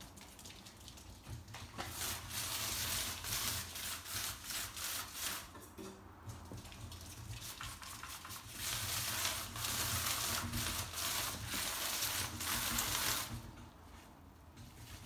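Crinkling, crackling rustle of plastic sheeting as animals scamper over it, in quick irregular bursts that die away near the end.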